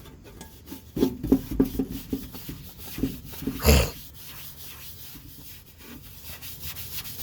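A cloth rag rubbing and scrubbing on the inside of a street light fixture being cleaned with WD-40, in a quick run of strokes with one louder scrape about halfway through, then softer, steadier wiping.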